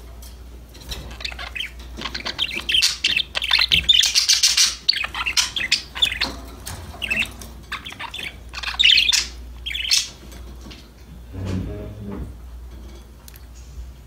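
Budgerigars chirping and warbling in quick, busy chatter for most of the stretch, thinning out to a few scattered calls in the last few seconds.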